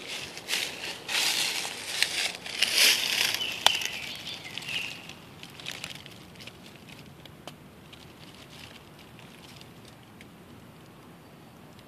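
Close rustling and crackling, of dry leaf litter and handling, for the first few seconds, with a few sharp clicks. It then dies down to a quiet outdoor hush, with a bird chirping briefly a couple of times.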